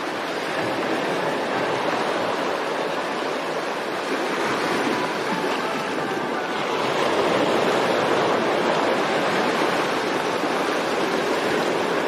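Steady rushing of running water, starting abruptly and growing a little louder about halfway through.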